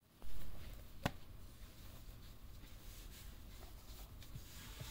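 Quiet room tone with a low thump just after the start, a single sharp click about a second in, and then a faint low hum with a few small ticks.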